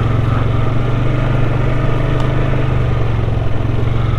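Off-road vehicle's engine running at a steady speed while driving along a rough trail.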